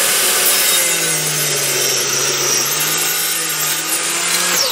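Small benchtop table saw running and ripping a board of beech, a loud, steady motor whine with cutting noise, the pitch sagging slightly while it cuts. Near the end the pitch falls as the saw winds down.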